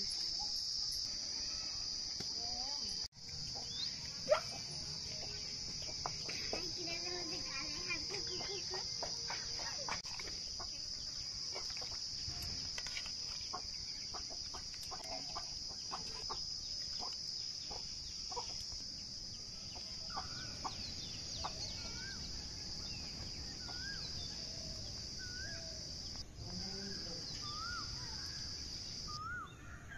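Outdoor rural ambience: a steady high insect drone that cuts off suddenly near the end, with chickens clucking and short rising calls through the second half, and scattered light clicks earlier on.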